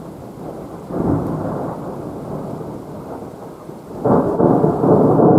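Thunder from a nearby lightning strike rumbling and echoing round the surrounding mountains and valleys. It builds about a second in, eases off, then swells louder again about four seconds in.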